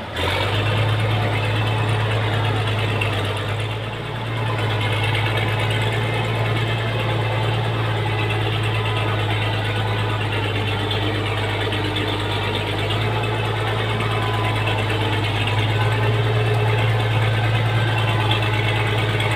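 Diesel farm tractor engine running steadily under load as it tows a loaded trailer through mud, a constant deep drone with a brief dip in loudness about four seconds in.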